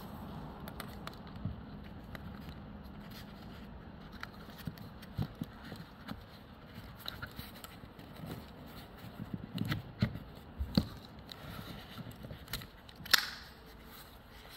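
Plastic Parker strimmer spool and spool housing handled with gloved hands: scattered light clicks, taps and scrapes as the spool is seated and the nylon line is fed out through the eyelets, with one sharper click near the end.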